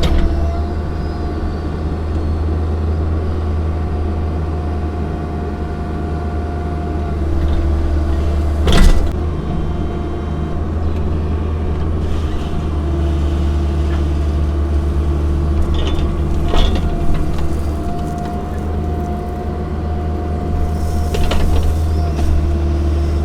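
Mini excavator's diesel engine running steadily under hydraulic load, with a steady whine over the low drone. There is a sharp clank about nine seconds in and lighter knocks later on.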